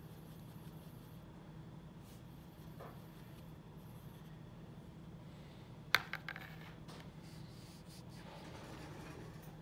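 Faint brushing of a paintbrush on sketchbook paper over a low steady room hum, with a sharp click about six seconds in followed by a few quieter ticks.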